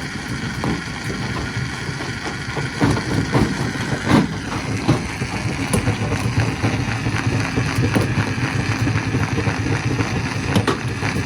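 Stone crusher running: a steady machine drone with irregular sharp knocks and clatter of rock throughout, the loudest about 3 and 4 seconds in.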